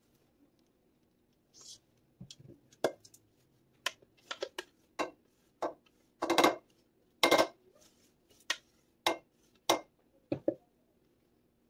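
Silicone spatula knocking and scraping against a mixing bowl while thick cream cheese filling is scraped out: a string of irregular sharp clicks and taps, the loudest about six and seven seconds in.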